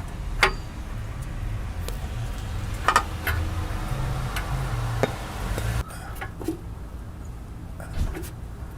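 A few sharp metal knocks and clinks from a 7/8 spanner working on a seized downstream oxygen sensor in the exhaust, over a low background rumble.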